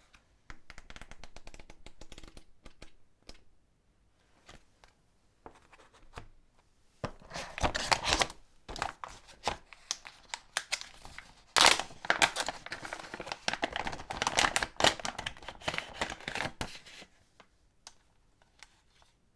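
Packaging being unwrapped by hand: crinkling and tearing of wrapping material. It is soft and intermittent at first, then a louder, busier run of crackling and tearing with sharp spikes takes over from about a third of the way in until shortly before the end.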